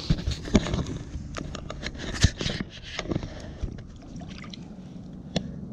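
Rockfish fillet being swished and dipped by hand in the water over a boat's side: irregular small splashes and sloshes, busiest in the first three seconds and then fewer.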